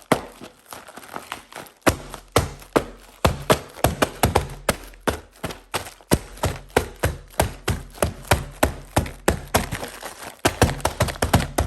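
Fists punching a sealed cardboard LEGO Technic box over and over: a fast, uneven string of hard thumps, several a second, with a short break about a second and a half in.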